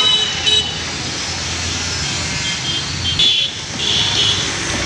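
Road traffic running steadily, with short vehicle horn toots near the start, a little after three seconds in, and again about a second later.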